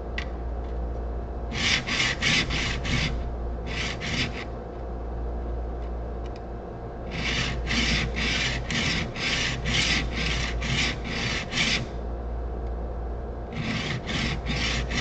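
Steel plane blade rubbed back and forth on a sharpening stone: quick gritty rasping strokes, about two to three a second, in runs of several strokes with short pauses between runs.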